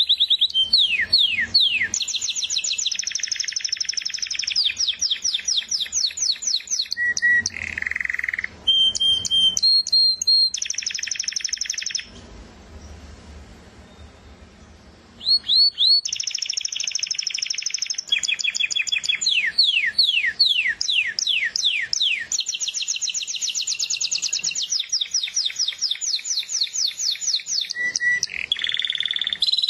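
Songbird singing long, loud phrases of rapid trills and sweeping notes, with a pause of about three seconds near the middle.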